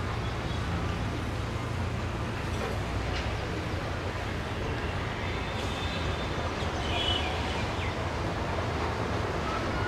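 Steady hiss of falling rain over a low rumble, with a few faint high chirps in the second half.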